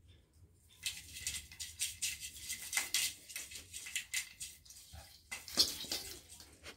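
Artificial Christmas tree branches and hanging ornaments rustling and rattling as a kitten paws and pulls at them: a busy run of quick crackly rustles starting about a second in, loudest near the end.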